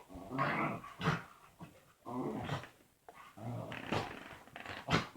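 A dog making a string of weird vocal noises: short pitched calls about a second apart, with a sharper, briefer one near the end.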